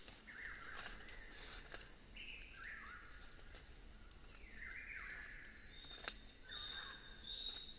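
Faint birdsong: a bird repeating a short falling phrase every second or two, with thin high whistled notes joining in over the last couple of seconds.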